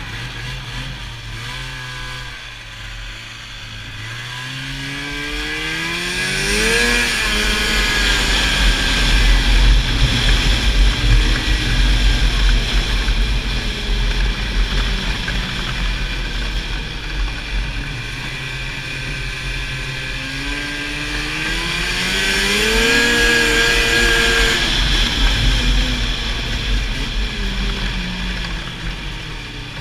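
Snowmobile engine accelerating hard twice, its pitch climbing steeply and then slowly easing off, over a steady rumble of track and wind noise.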